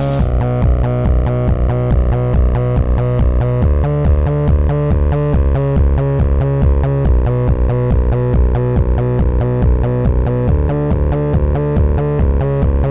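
Electronic dance music: a heavy pulsing bass and synthesizer notes over a steady, even beat.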